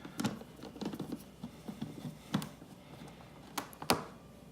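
Screwdriver backing a screw out of a plastic tool-set case: scattered small clicks, ticks and scrapes, with a few sharper clicks near the end.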